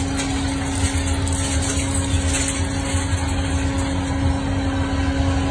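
HongDa hydraulic gantry scrap-metal shear running, its hydraulic pump unit giving a steady hum with a deep drone underneath.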